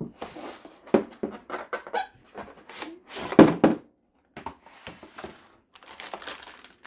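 Hollow plastic toy sink and its cardboard box being handled on a table: a series of knocks and clunks, the loudest a thud about three and a half seconds in, then a plastic bag crinkling near the end.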